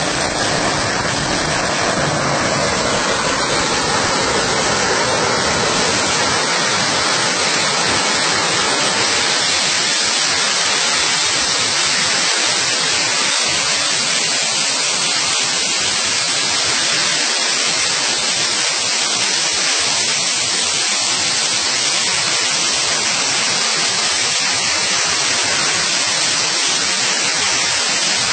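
Firecrackers going off continuously, merged into a steady, dense crackle and hiss with no single bang standing out.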